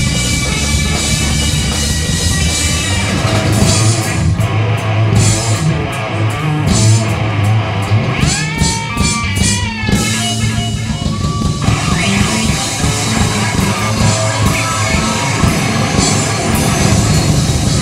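Live rock band recording with electric guitar and drum kit, played as background music; about eight seconds in, a guitar line bends up and down in pitch.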